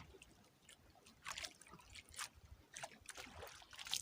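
Small splashes and trickles of water, coming as several short separate bursts, around a small fishing boat as a line is worked.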